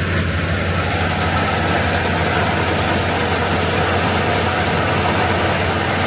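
Claas Lexion combine harvester running steadily while cutting wheat with its Claas Vario header: a constant low engine and machinery hum with an even hiss over it.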